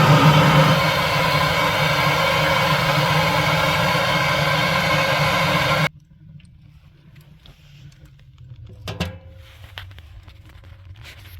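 Background guitar music that cuts off abruptly about six seconds in, leaving quiet room sound with a couple of faint knocks.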